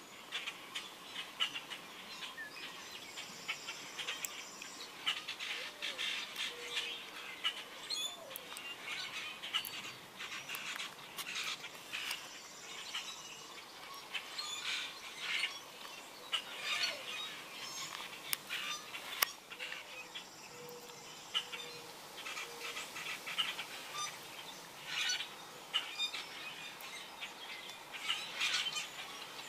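Songbirds chirping and calling throughout, many short high chirps overlapping with a few brief song phrases.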